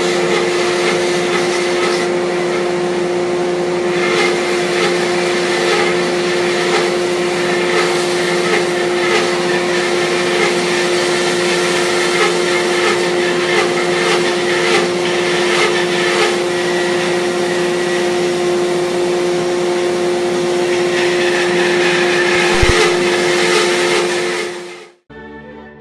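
Bandsaw running steadily, its blade slowly cutting through a log. The sound cuts off suddenly near the end and music starts.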